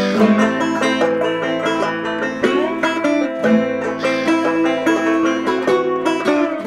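Background music led by a quickly plucked string instrument, in a banjo-like style.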